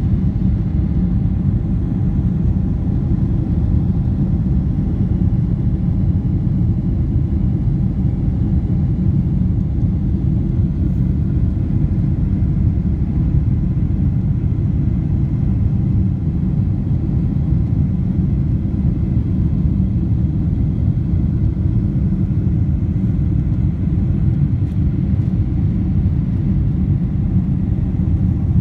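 Steady low rumble of a Boeing 747-8 airliner's four GEnx engines and rushing airflow, heard from inside the passenger cabin during the climb after takeoff.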